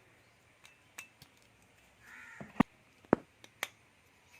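Sharp metallic clicks and knocks of small shock-absorber parts being handled and fitted, the loudest two just past halfway. Just before them, a brief harsh bird call sounds once in the background.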